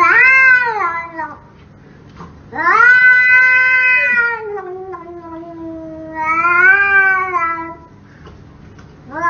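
A cat giving long, drawn-out meows, three in a row, each rising and then falling in pitch.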